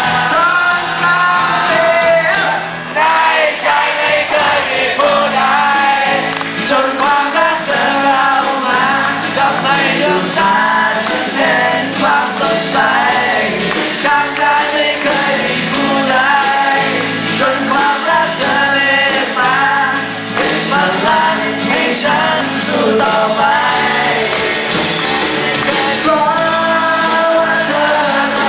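Live acoustic rock band playing a song with sung vocals throughout.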